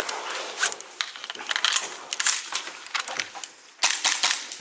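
Irregular sharp clicks and crunching, with a quick cluster of clicks about four seconds in.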